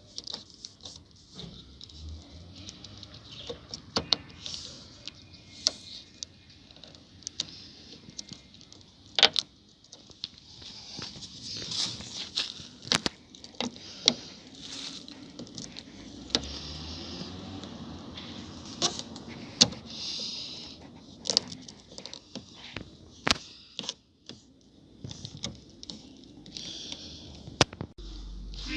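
Scattered sharp clicks and taps with bouts of scraping and rubbing as the plastic cover piece is worked into a BMW E36 outer door handle mechanism.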